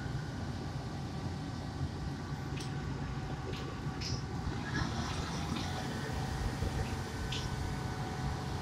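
Wirtgen W 200 cold milling machine running: a steady low diesel rumble with a steady mechanical whine over it, and a few short high-pitched chirps.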